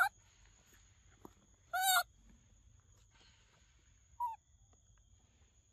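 Macaque giving short squeaky calls that fall in pitch, three times: a brief one at the start, a longer and loudest one about two seconds in, and a short one about four seconds in.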